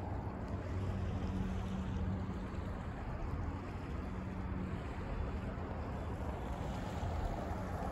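Steady outdoor background noise with a low engine drone underneath, swelling a little about a second in and again near the middle.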